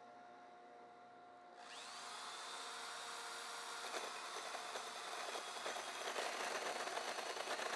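A corded drill fitted with a hole saw starts about a second and a half in, its whine rising as the motor spins up. From about four seconds the hole saw cuts into a spinning wood blank on the lathe, a rough cutting noise that grows louder. Before the drill starts there is only a faint steady machine hum.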